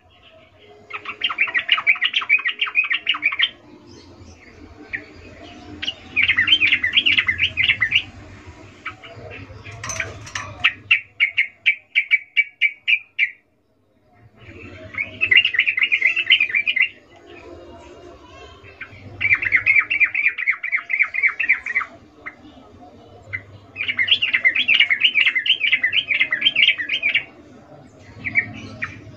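Female yellow-vented bulbul (trucukan) giving its rapid chattering breeding call in repeated bursts of two to four seconds, with one slower run of separate notes midway; this is the call used to lure male bulbuls into singing.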